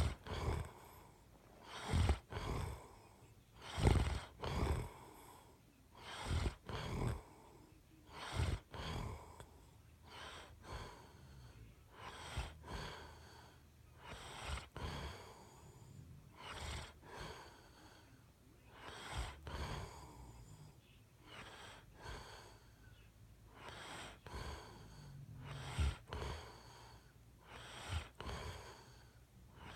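Someone snoring, one noisy breath about every two seconds, some breaths much louder than others.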